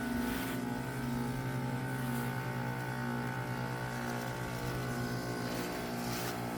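2007 2-ton Carrier base model heat pump running in its defrost cycle: a steady hum made of several held tones, the higher one wavering slightly.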